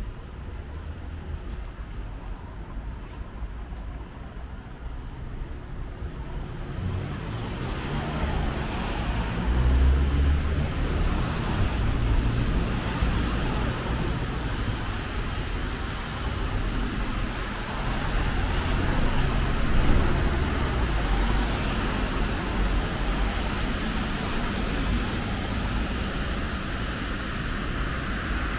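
Street traffic on a wet road: cars passing with tyres hissing on the wet asphalt. The traffic is quieter at first, swells about a quarter of the way in, then holds steady with a couple of louder passes.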